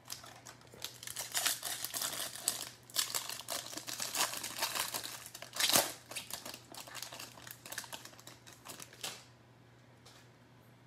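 A 2021 Bowman baseball card pack's plastic-foil wrapper is crinkled and torn open, in a run of crackling rustles. The loudest, sharpest crackle comes a little past halfway, and the rustling stops about two seconds before the end.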